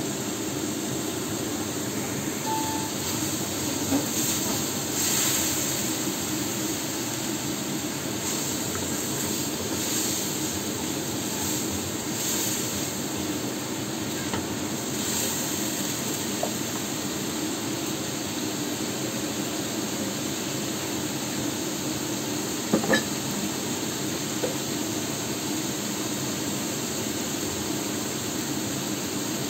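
Chicken and meat pieces sizzling steadily in a non-stick wok over a gas flame, cooking without oil and letting off steam. A spatula scrapes and stirs them for a stretch in the first half, and a couple of sharp knocks come later.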